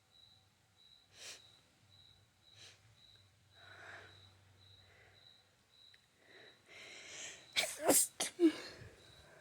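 A person sniffing and breathing in a few times, then a breathy build-up inhale and a loud allergy sneeze about eight seconds in, in two quick bursts with a short voiced tail.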